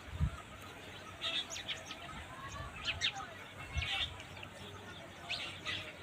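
Short, scattered bird chirps, a few at a time, with the odd faint low thump between them.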